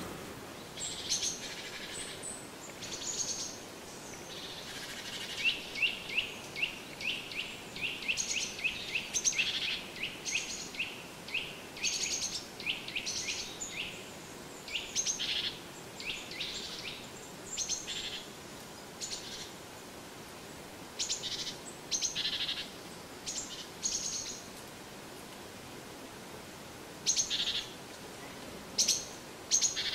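Small songbirds calling in the forest: short high chirps scattered throughout, with a quick series of repeated notes about five seconds in that runs for several seconds.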